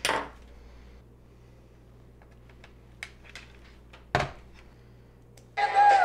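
Sharp clicks of a plastic cassette recorder being handled, including a loud key press about four seconds in. Near the end the Onn ONA13AV504 cassette recorder's small built-in speaker starts playing music from a tape, switched on by the microphone's remote switch.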